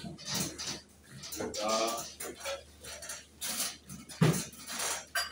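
Kitchen clatter of metal dishes and serving utensils knocking and clinking on stainless steel, with one sharp clink about four seconds in.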